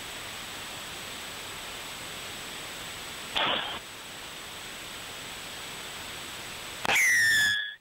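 Steady hiss of stadium ambience. A brief falling sound comes about three and a half seconds in, and near the end a referee's whistle blows one loud blast.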